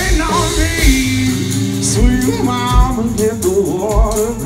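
Live band playing a song: singing over acoustic guitar and drum kit, with a kick drum thumping about once a second.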